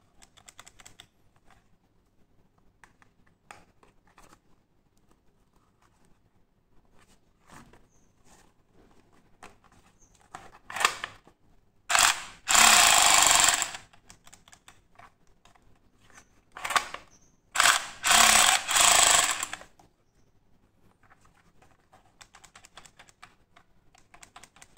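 Blue plastic toy MP5 submachine gun giving out its rapid firing sound in several bursts about a second apart, the longest about one and a half seconds, between light plastic clicks and handling.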